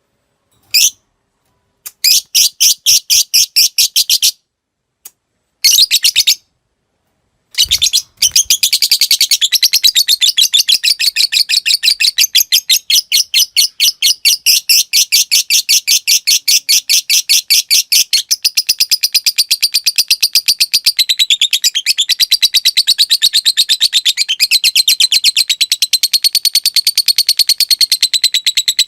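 Fighter lovebird calling: first a few short bursts of rapid ticking chirps ('ngetik'), then from about eight seconds in a long, unbroken, very fast chattering trill ('ngekek panjang'). This long ngekek is the song that masteran recordings are made to teach.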